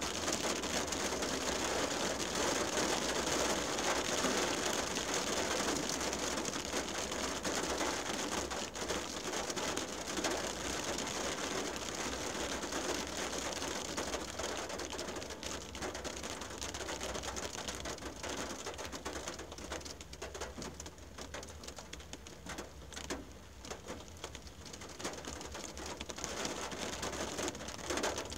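Rain falling on a car windshield, heard from inside the car: a dense hiss of drop impacts, heavy at first and thinning out about halfway through into more scattered separate taps before picking up again near the end.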